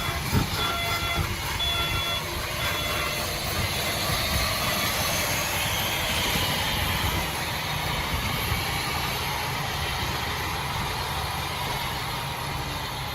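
Heavy earthmoving machine's diesel engine running, with a backup alarm beeping repeatedly for the first three seconds or so.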